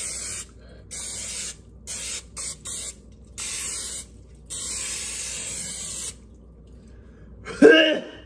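Aerosol can of Pam cooking spray hissing in about seven short bursts as a baking pan is greased, the last and longest lasting about a second and a half. Near the end a short vocal sound from the man is the loudest moment.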